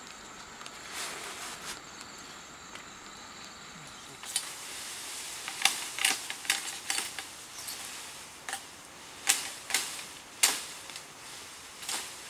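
A machete chopping into a standing bamboo cane: about nine sharp, irregular knocks, starting about four seconds in. Before them there is only a faint steady hiss.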